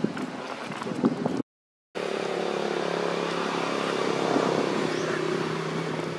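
Outdoor rustling with a few sharp clicks, cut off by half a second of silence, then a motor engine's steady low drone that swells a little and eases off.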